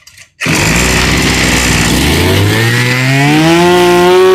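Maruyama 24cc two-stroke brush cutter engine catching on the pull-start about half a second in, then revving up, its pitch climbing steadily for a couple of seconds to a loud, high, steady howl.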